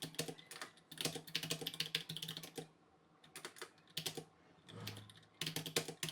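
Typing on an iGear Raptor 60% mechanical keyboard with clicky switches: rapid runs of key clicks, with a pause of about a second just before the middle.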